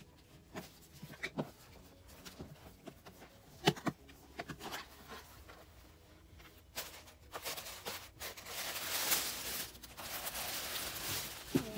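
Cardboard gift box being handled and opened, with scattered light taps and one sharper knock, then tissue paper and a plastic bag rustling steadily from about eight seconds in.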